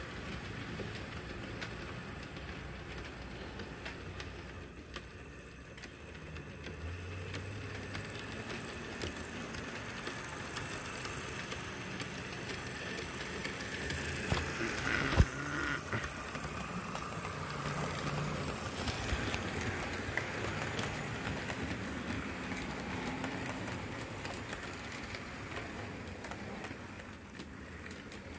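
HO-scale model train running on sectional track: the locomotive's electric motor hums, and the wheels click over rail joints. The hum grows louder about halfway through, as the locomotive passes close by, and there is one sharp click around then.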